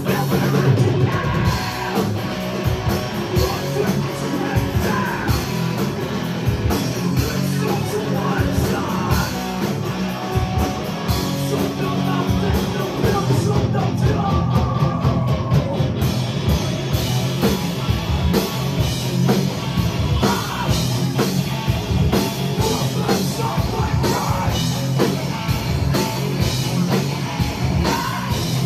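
Heavy metal band playing live: distorted electric guitars, bass and drums, with a vocalist singing into a microphone over them.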